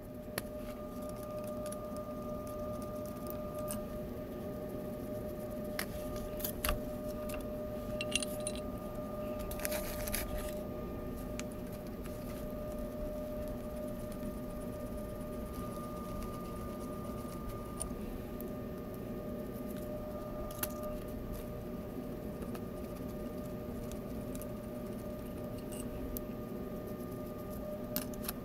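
Scattered metallic clinks and taps of an adjustable wrench on the nuts and bolts of a chilled-water valve's pipe couplings, clustered in the first third, over a steady machinery hum.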